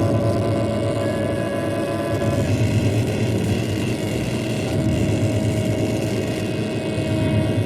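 Steady, loud engine-like mechanical rumble with a continuous drone, a sound effect on a 1940s cartoon soundtrack.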